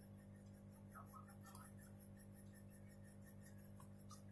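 Near silence: a steady low electrical hum, with a few faint light ticks.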